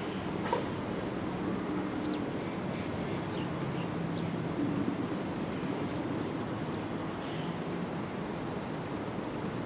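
Gusty wind rushing over the microphone. Faint low steady tones come and go under it, and a few faint short chirps sound about two to four seconds in.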